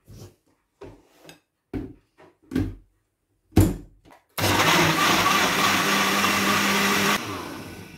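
Countertop blender blending beetroot pieces with orange juice. A few knocks come as the jug is handled, then the motor runs steadily for about three seconds from just over four seconds in and winds down when it is switched off.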